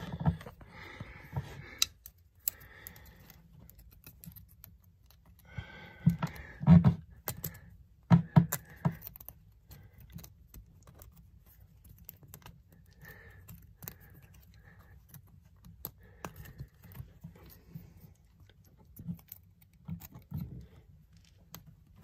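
Small metal hand tools clinking and scraping against metal while they are handled at the pump. The clicks are scattered and light, with a few louder clusters of clatter about six to nine seconds in.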